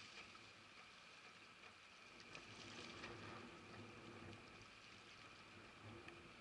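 Near silence: faint shoreline ambience, with water lapping on the rocks.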